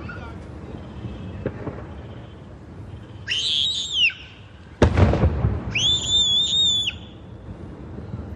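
Aerial firework shell bursting with a single sharp bang about five seconds in, followed by a short rumble. A high, wavering whistle sounds twice, once before the bang and once after it.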